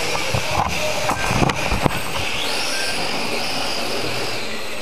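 Mini RC cars' electric motors whining, the pitch rising and falling, with a cluster of sharp knocks and clatters between about half a second and two seconds in.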